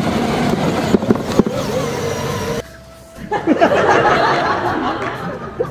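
Electric ride-on toy car (Power Wheels) running, its motor and plastic wheels rolling, cutting off suddenly about two and a half seconds in. After a short lull a different busy sound of many short sliding tones follows.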